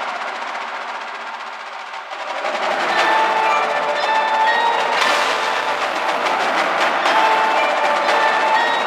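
Indoor drumline and front ensemble playing, swelling from soft to loud about two to three seconds in. Ringing pitched notes are held over the drums.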